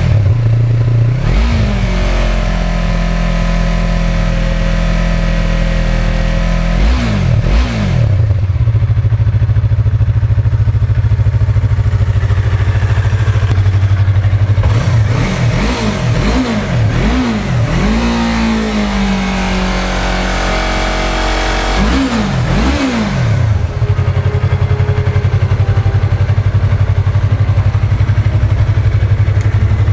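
Stock Yamaha R3's two-cylinder engine idling, with sharp throttle blips. There is a quick rev near the start, a couple more about seven seconds in, and a run of several blips around fifteen to eighteen seconds that falls slowly back to idle. Two final blips come around twenty-two seconds, and then it idles steadily.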